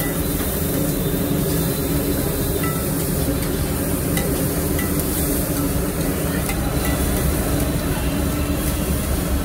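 Slotted metal spatula scraping and stirring onions and egg frying in butter on a large flat iron griddle (tawa), with steady sizzling over a low background hum.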